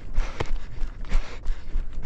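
Running footsteps, about three strides a second, each footfall a sharp thud, over a steady low rumble.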